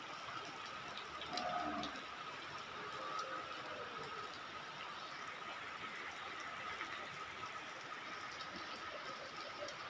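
Heavy rain falling steadily into standing water, a continuous even hiss with faint scattered drop ticks. A brief faint voice-like sound comes about a second and a half in.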